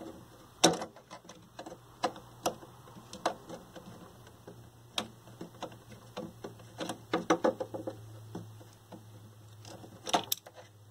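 Irregular small metallic clicks, ticks and taps as the quarter-inch nut holding a vintage television's tuner assembly is worked loose by hand and the tuner is handled, with quicker clusters of clicks near the end. A faint steady low hum runs underneath.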